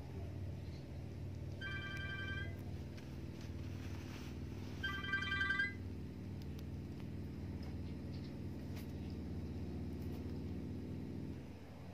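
Two short trilled twitters from edible-nest swiftlets, about three seconds apart: the birds' own calls, not a lure speaker. A steady low hum runs under them and drops away near the end.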